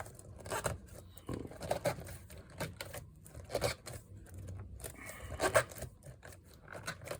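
Irregular light scrapes, rustles and clicks of plastic parts being handled as a replacement keyboard is fitted into a Lenovo ThinkPad P71.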